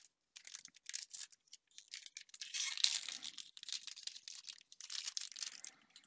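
Foil wrapper of a Magic: The Gathering set booster pack being torn open and crinkled: an irregular run of short ripping and crackling noises, loudest about halfway through.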